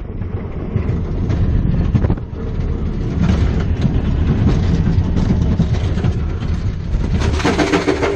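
Steel hypercoaster train running fast on its track, heard onboard: a heavy wheel rumble with rattling and clatter. Near the end a higher ringing note joins as the train reaches the brakes.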